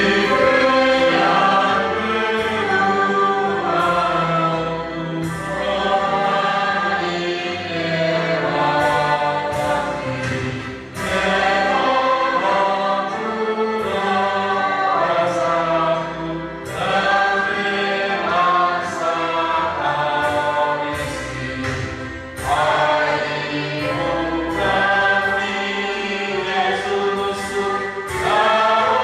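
A group of voices singing a hymn together, in long held phrases with short breaks every five or six seconds.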